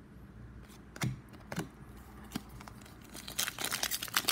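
A few light clicks, then, about three seconds in, the foil wrapper of a trading card pack crinkling and tearing as it is opened.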